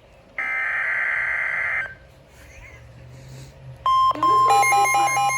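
NOAA Weather Radio emergency alert coming over a receiver: one burst of raspy EAS/SAME digital header data about a second and a half long. About four seconds in, the steady 1050 Hz warning alarm tone starts, joined half a second later by a radio's own rapid, pulsing alert beeping.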